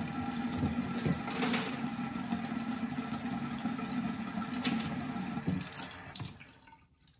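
Water running steadily from a tap into a sink, then shut off near the end.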